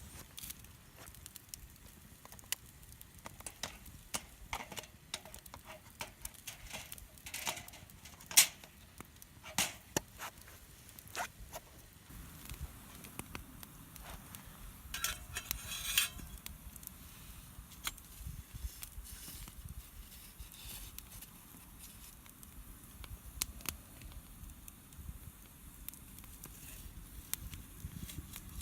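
Wood campfire crackling, with irregular sharp pops and snaps, one louder pop about eight seconds in. A short hissing stretch comes about halfway through.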